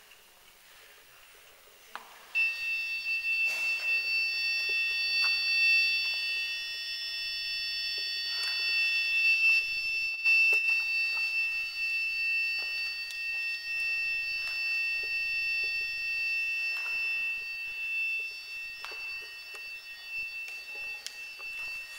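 A steady, high-pitched electronic whistle made of several tones at once. It switches on suddenly about two seconds in and runs on unbroken, with a few light knocks from handling.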